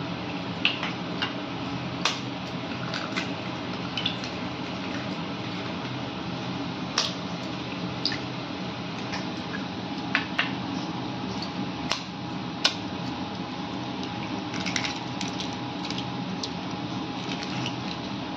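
Eggs being cracked open into a glass bowl: scattered sharp taps of shell breaking, with the wet egg sliding into the bowl, over a steady background hum.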